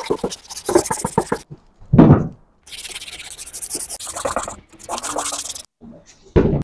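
Sandpaper rubbed by hand over the edges of a fiberglass outboard motor cowling: several runs of quick back-and-forth scratchy strokes with short pauses between them. A louder dull bump about two seconds in.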